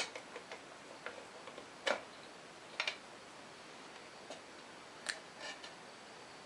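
Scattered light clicks and taps of hand tools and small metal parts being handled on a motorcycle's headlight and speedometer assembly, about eight of them, the sharpest near two seconds in and a quick double a second later.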